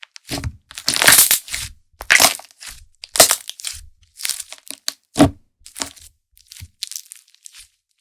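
Handmade slime squeezed and pressed by hand, giving crackling, crunchy bursts about once a second.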